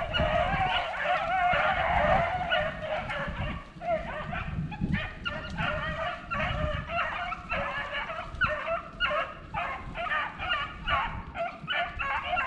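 A pack of beagles baying while running a rabbit: several dogs giving tongue at once in an overlapping chorus that breaks, after about four seconds, into a quick run of separate bays. Wind rumbles on the microphone, strongest in the first few seconds.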